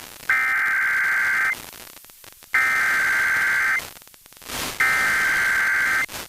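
Emergency Alert System (SAME) header from NOAA Weather Radio: three identical bursts of buzzy digital data tones, each a little over a second long and about a second apart, with radio hiss between them. They mark the start of a new alert, the encoded header for the severe thunderstorm warning that follows.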